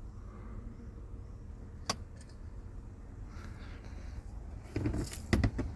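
A single sharp click about two seconds in, then a short clatter of several clicks and knocks near the end, over a steady low rumble.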